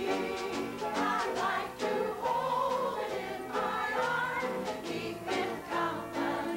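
A group of older women singing a song together.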